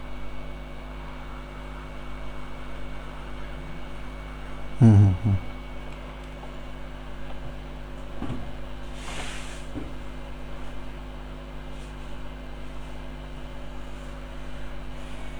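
Hot air rework gun running, a steady blowing hum with an even electrical drone, while it heats small parts off a phone circuit board. A brief hiss is heard about 9 seconds in.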